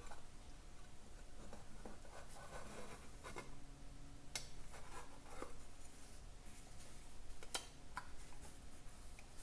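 Hands handling small parts on a workbench: scattered light clicks and a stretch of rubbing about two to three seconds in, over a faint steady hum.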